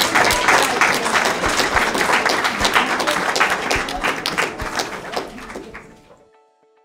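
Crowd applauding, fading out about six seconds in. Soft background music with plucked guitar notes runs underneath and carries on alone near the end.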